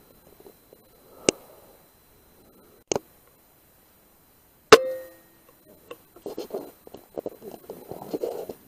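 A single sharp rifle shot a little past halfway, the loudest sound here, with a brief ringing tone after it. Two fainter clicks come before it, and soft irregular noises follow.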